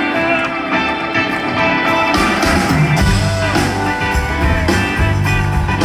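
A live rock band playing through the venue PA: guitar notes at first, then drums and bass come in hard about three seconds in and the full band plays on.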